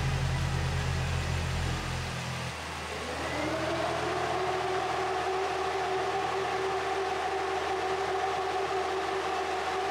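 A Nissan 350z's 3.5-litre V6 runs with a strong low drone that drops away about two seconds in. About a second later the Mishimoto electric radiator fans spin up with a rising whine, then run at a steady pitch, while the engine warms up to bleed air from the coolant.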